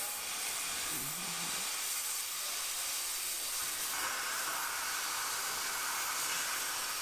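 Gas cutting torch hissing steadily as it cuts through a steel bracket. About four seconds in the hiss grows fuller as the cut gets going.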